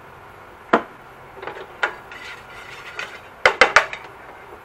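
Plastic slotted spatula knocking against a nonstick frying pan: a single knock about a second in, another near two seconds, then a quick run of four or five knocks about three and a half seconds in.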